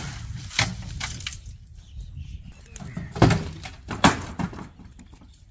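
Several sharp knocks and bangs on a livestock truck carrying cattle, the loudest two about three and four seconds in, over a low rumble.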